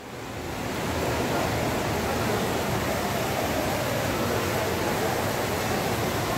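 Steady rush of running water from an indoor mall water feature, swelling over the first second and then holding, with the murmur of a crowd beneath it.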